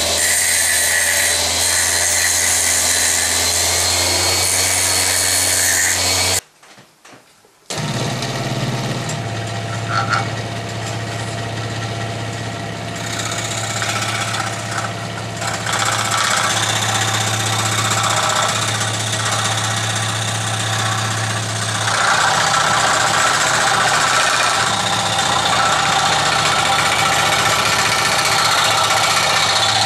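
A bench grinder's flexible-shaft rotary tool running steadily. After a brief silence, an electric scroll saw runs and cuts a wooden blank for the rest of the time.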